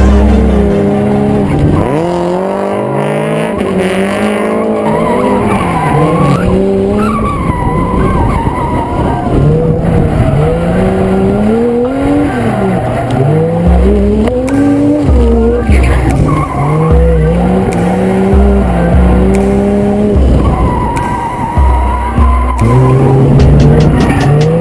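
A Mazda RX-7 FC3S with a swapped-in 1JZ-GTE twin-turbo straight-six, heard from on board while drifting: the engine revs up and down over and over as the car is held sideways, with tyre squeal and skidding.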